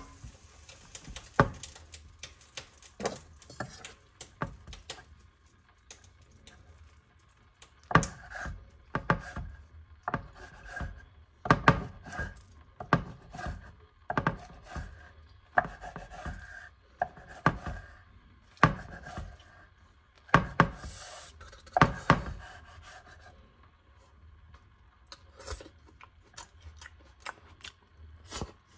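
Kitchen knife cutting on a wooden cutting board: separate knocks at irregular intervals, bunched in the middle and thinning out near the end.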